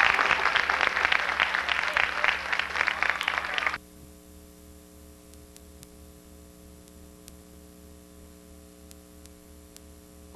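Audience applauding, cut off suddenly about four seconds in. A steady electrical mains hum follows, from a blank stretch of VHS tape.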